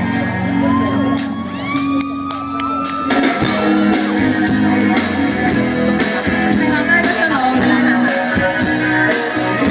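Live band music between sung lines: a single sliding, rising note over held chords, then the full band with drums comes in about three seconds in.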